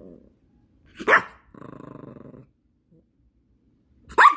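Yorkshire terrier barking twice, a sharp bark about a second in and another near the end, with low growling before and between.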